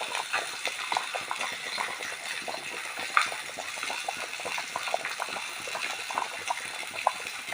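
Water boiling in a pan used for steaming fish: a steady bubbling with many small, quick pops.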